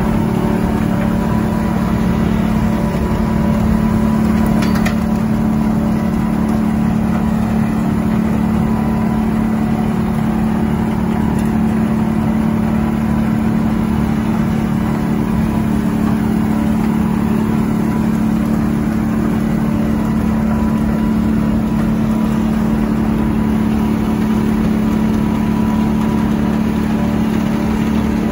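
Larue D60 snow blower working with the dump truck it is loading, both diesel engines running with a steady, unchanging drone as the blower throws snow into the truck.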